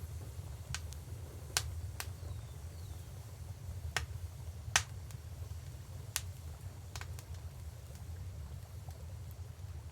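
Wood fire crackling: sharp, irregular pops and snaps, the loudest a little before five seconds in, over a low steady rumble.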